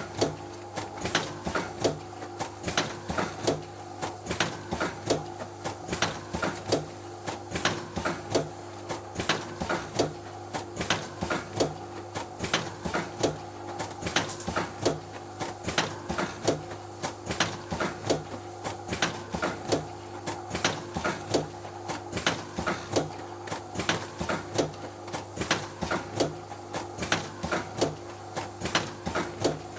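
Milk sachet filling and sealing machine running: a steady hum with a held tone under a fairly regular clatter of sharp clicks, about two or three a second, as the plastic sachets are filled and sealed.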